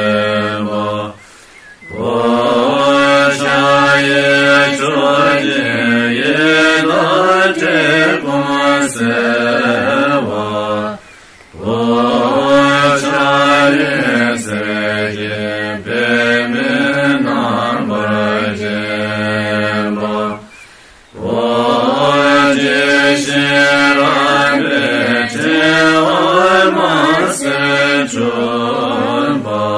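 Mantra chanted to a slow melody over a steady low drone, in long phrases broken by short pauses roughly every ten seconds.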